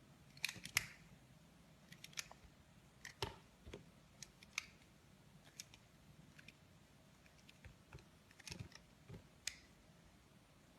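Soap being cut: irregular, crisp, sharp clicks and snaps, sometimes two or three close together, the loudest about a second in, with faint room hiss between them.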